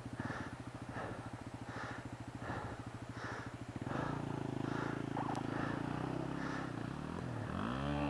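Dual-sport motorcycle engine idling close by with an even, rapid throb. A little under four seconds in, the sound turns smoother and fuller, and near the end the revs begin to rise.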